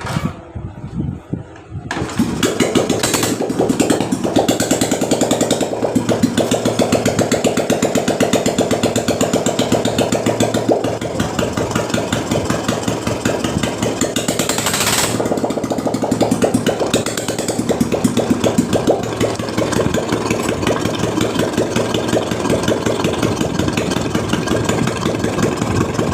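Royal Enfield Bullet single-cylinder engine starting about two seconds in and then idling with a steady, even beat, freshly rebuilt with new hydraulic tappets, head and piston to cure a tak-tak noise.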